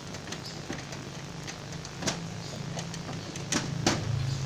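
A few sharp metal clicks and knocks from the rotating chicken-roasting oven as it is loaded. A low, steady machine hum comes in near the end.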